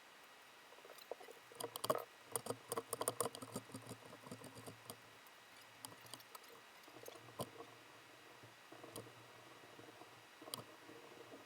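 Scattered clicks and light metallic rattles of hand tools and bolts being handled while parts are taken off a Honda CRF150 dirt bike, busiest about two to five seconds in.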